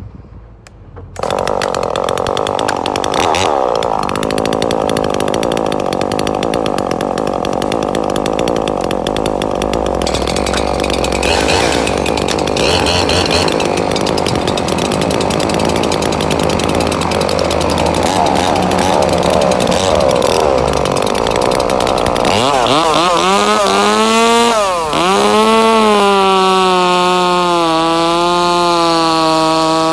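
Husqvarna two-stroke chainsaw engine running hard, starting suddenly about a second in. About 22 seconds in the sound turns into a clearer engine note that rises, dips sharply once and then holds with a slight waver.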